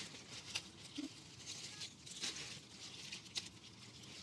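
Faint rustling and small snaps of tender lettuce leaves being picked by hand, a few short clicks among soft leaf rustle.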